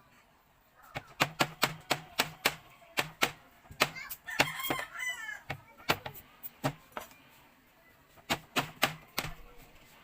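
Sugarcane being chewed close to the microphone: runs of sharp crunches, about three or four a second, with short pauses between the runs. A rooster crows briefly about halfway through.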